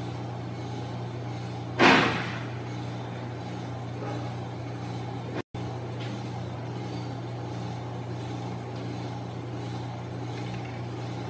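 A steady low hum, with one loud, short rush of noise about two seconds in and a brief cut-out near the middle.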